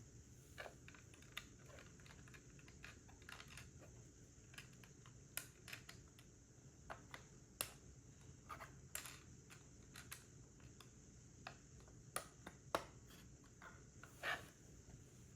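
Lego bricks and pieces being handled and pressed together: irregular small plastic clicks and taps, a few of them sharper and louder.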